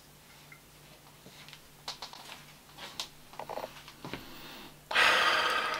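Fragrance One Office for Men bottle's atomizer spraying once: a single hiss of mist lasting under a second about five seconds in, after a few light clicks of the bottle and cap being handled.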